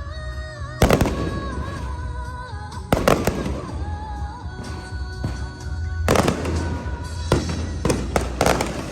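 Fireworks bursting in the sky, six or so sharp bangs a second or more apart, over music with a held, wavering melody.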